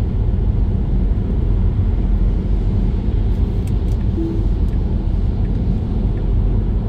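Steady low rumble of a car driving on a wet, slushy highway, engine and tyre noise heard from inside the cabin.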